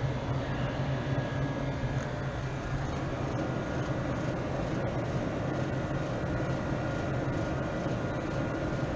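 Zero Zone commercial freezer's refrigeration equipment running with a steady low hum, a faint steady whine above it and an even rush of air.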